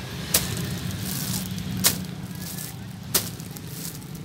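Plastic packaging being handled: three short, sharp crackles about a second and a half apart over a steady low hum.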